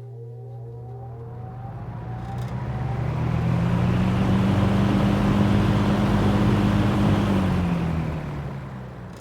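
1973 K-mart Lakewood P-23 box fan starting up on high: a motor hum with a whine that rises in pitch as the blades spin up, and a rush of air that builds over about four seconds to full speed. The sound grows fainter near the end.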